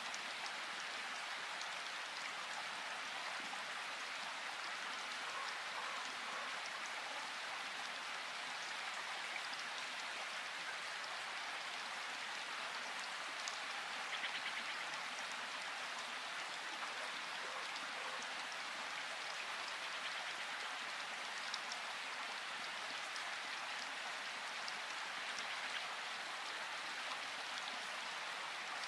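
A steady, even hiss with faint scattered ticks, like falling rain.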